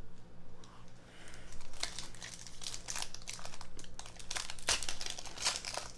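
Foil wrapper of a Topps Chrome trading card pack crinkling as it is opened and handled: a run of irregular crackles that thickens about two seconds in.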